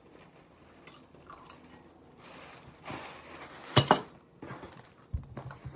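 Tableware and plastic-bag handling at a table: a plastic bag rustling, then a sharp double clink a little after halfway, followed by a few light knocks near the end.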